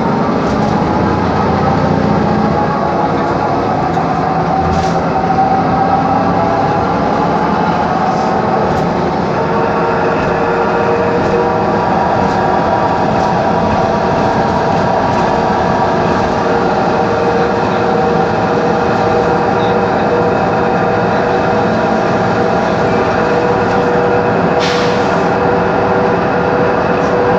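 Noisy whine from the faulty ZF differential of a 2013 Mercedes-Benz Conecto G articulated bus, heard from inside the bus while it drives, over road and engine noise. Several held tones drift slowly in pitch, with a brief click near the end.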